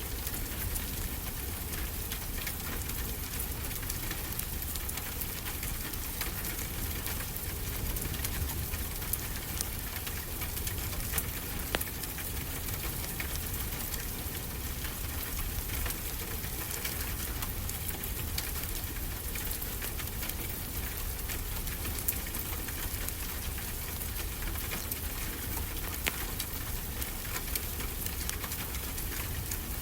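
Steady rain falling, an even hiss with a low rumble beneath, with the sharp, scattered crackles of a wood fire in a fireplace.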